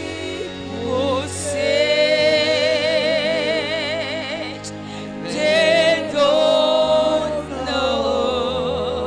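A woman sings gospel into a handheld microphone, holding long notes with a wide, even vibrato, over a steady, sustained low backing.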